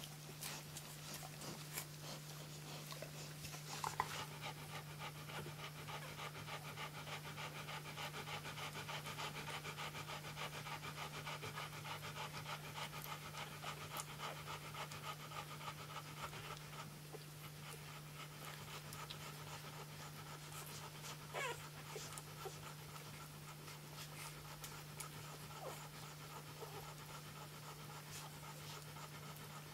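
Flat-coated retriever bitch panting quickly and evenly beside her nursing puppies. The panting is strongest in the first half and eases off a little later, over a steady low hum.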